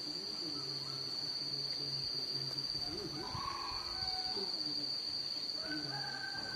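Insects trilling in one steady high-pitched tone, with fainter wavering sounds underneath and a short higher call near the end.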